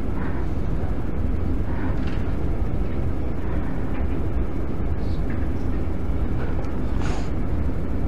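Steady low room hum with faint voices now and then.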